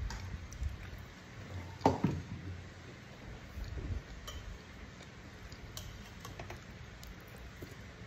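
Fingers scraping and tapping a ceramic plate while scooping up rice and sauce by hand, with scattered small clinks and one sharper knock about two seconds in.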